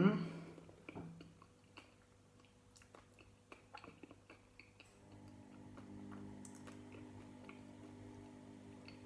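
A spoon clinks against a bowl, then come small, sparse crunches and clicks of someone eating bran flakes. A faint steady hum sets in about five seconds in.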